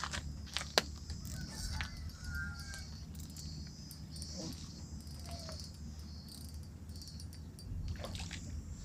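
Insects, crickets, chirping in a steady high chorus over a low steady rumble. A few sharp clicks come in the first second, and brief faint bird chirps follow a couple of seconds in.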